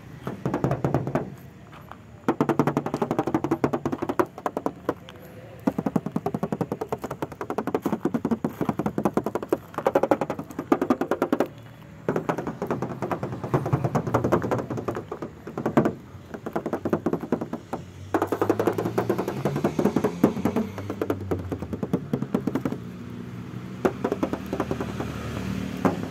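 Fingers tapping rapidly on the steel roof and hood panels of a Daihatsu Charade Classy, in quick runs of a second or two with short pauses between, to show the body is still bare sheet metal and not filler.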